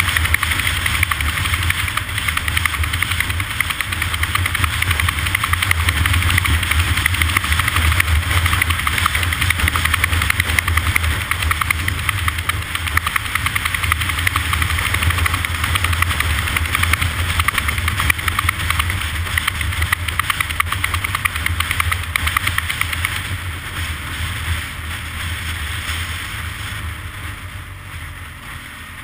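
An engine running steadily with a low rumble and fast even pulsing, growing quieter over the last several seconds.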